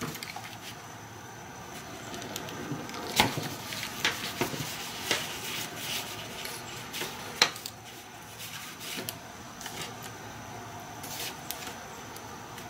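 Scattered light scratches, rubs and small clicks of an awl and a metal rivet being worked through a punched hole in a nylon dog-collar strap. The sharpest clicks come about three seconds and seven seconds in.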